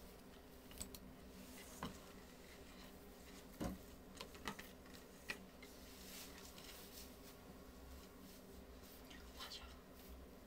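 Near silence with faint rustling and a few soft taps and clicks as synthetic wigs are pulled on over wig caps and adjusted by hand.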